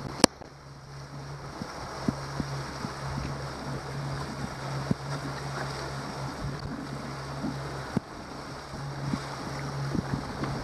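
A 2019 Yamaha 70 hp four-stroke outboard running steadily under way, with water rushing past the hull and wind on the microphone. A sharp knock just after the start is the loudest sound, and a few fainter knocks follow.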